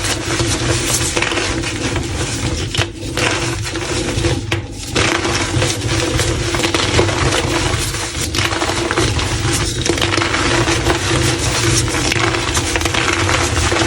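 Blocks of gym chalk being crushed, a dense, continuous crunching and crumbling with brief lulls about three and five seconds in, over a steady low hum.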